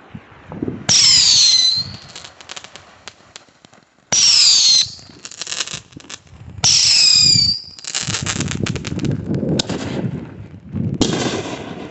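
Whistling fireworks going off one after another, three shrill whistles that each fall in pitch and last about a second, followed by a stretch of rapid crackling and another loud burst near the end.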